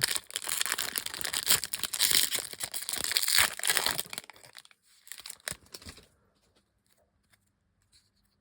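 A trading card pack's wrapper being torn open and crinkled: dense crackling for about four seconds, then a few lighter rustles and clicks that die away about six seconds in.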